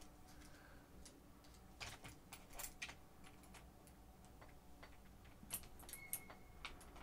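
Faint, scattered small clicks and taps of an RC truggy's plastic front suspension arm and metal hinge pin being handled and lined up, in two short clusters.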